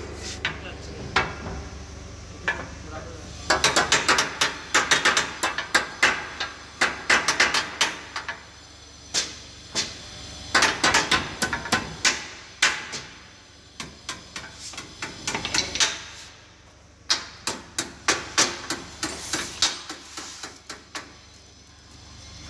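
Bursts of quick, sharp metal taps from hand-tool work on the base of a Rieter G38 ring spinning frame while it is being levelled, several strikes to a burst, with pauses between bursts.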